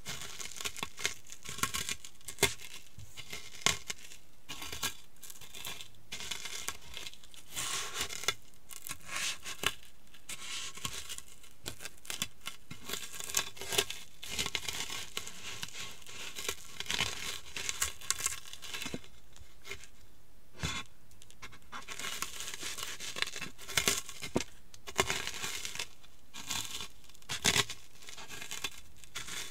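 Cheetos being crushed and ground under the soles of high-heeled sandals on a hard floor: a continuous, irregular crunching and crackling of the crumbling snacks, with sharper loud crunches every few seconds.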